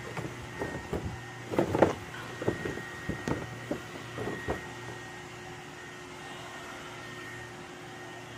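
Cardboard doll box being opened and the doll pulled out of its packaging: a run of irregular rustles, taps and knocks, loudest about two seconds in, stopping about halfway through. After that only a steady hum with a faint high whine remains.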